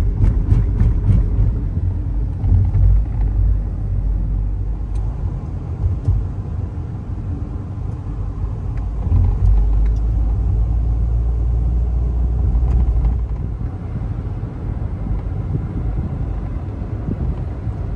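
A car driving along a road, heard from inside the cabin: a steady low rumble of engine and road noise, with a few light clicks about half a second to a second in.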